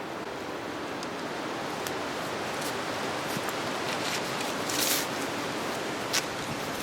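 Steady wind noise outdoors, with a few short crackles and clicks scattered through it, the most prominent about five and six seconds in.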